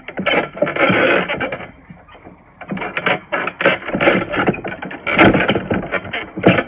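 Garden trampoline in use: springs squeaking and the mat thudding in an uneven run as a child bounces and tumbles on it, with a brief lull about two seconds in.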